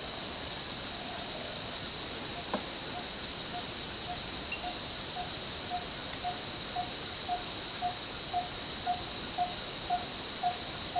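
Forest ambience: a steady, high-pitched chorus of insects, with a short low note repeating about twice a second from about a second in and growing gradually louder.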